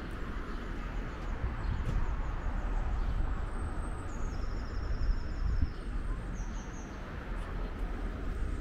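Street ambience: a steady low rumble of city traffic and wind on the microphone. From about three and a half to seven seconds in, small birds twitter in rapid, high trills.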